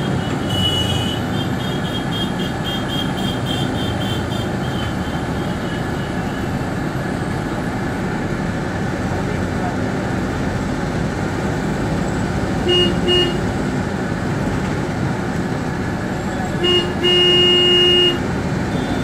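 Steady engine and road noise inside a moving bus. A vehicle horn gives two short toots about two-thirds of the way through and then a longer blast of about a second and a half near the end.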